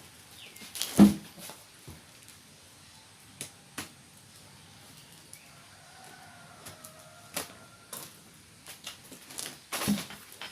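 Packaging of a motorcycle pannier being handled while it is unboxed: scattered knocks and taps, with a louder thump about a second in and another near the end.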